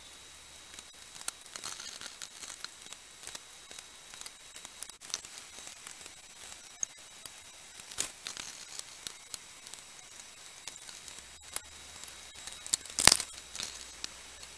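Scattered small knocks, scrapes and rustles of hands and tools working clay coils on a wooden board, with one louder clatter about 13 seconds in. A faint steady high whine runs underneath.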